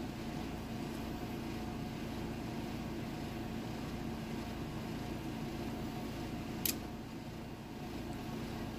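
Steady mechanical room hum, like a fan running, with one short sharp click about two-thirds of the way through as small lock-cylinder parts are handled.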